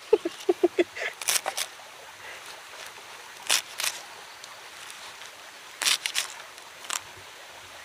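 Small knife cutting through crisp water spinach (kangkung) stems, a string of sharp snaps: several in quick succession in the first second and a half, then pairs of snaps around the middle and a single one near the end.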